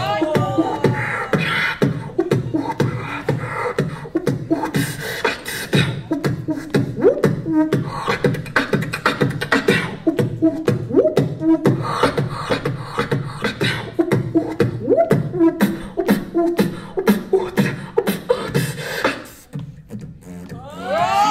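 Beatboxing into a handheld microphone held against the mouth: a fast, steady beat of mouth-made kicks and snares with short pitched hums sliding up and down between them. The beat stops near the end.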